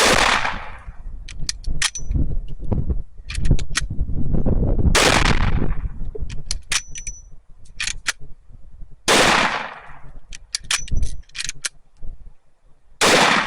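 Four gunshots from a mare's leg lever-action gun, about four seconds apart, each with a fading tail. After each shot comes a quick run of sharp metallic clicks as the lever is worked.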